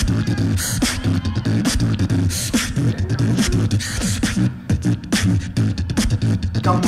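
A beatboxer performing into a microphone over a PA: quick sharp snare and hi-hat sounds over a sustained deep bass line.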